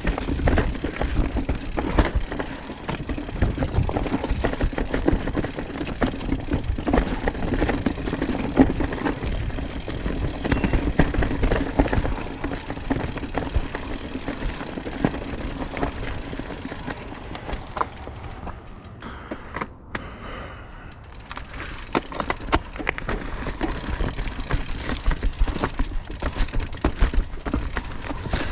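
Mountain bike riding down a rocky trail: a steady clatter of tyres hitting rocks, with the bike's chain and frame rattling. It goes quieter for a few seconds about two-thirds of the way through.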